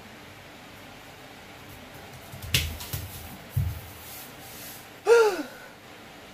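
Gulping water from glasses, with a sharp click and a couple of soft low knocks around the middle. About five seconds in comes a short groan that falls in pitch, a reaction to swallowing a piece of aloe vera.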